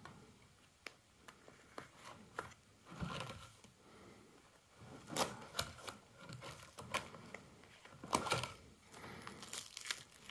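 Plastic binder pages of baseball cards being turned and handled: faint rustling of the plastic sleeves with scattered light clicks and taps.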